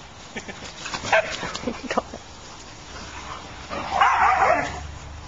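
Dogs barking and yipping in short, sharp calls while playing, with a louder, longer outburst about four seconds in.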